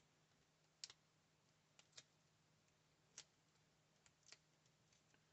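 A few faint, short clicks and taps of paper and cardstock craft pieces being handled and pressed down, otherwise near silence.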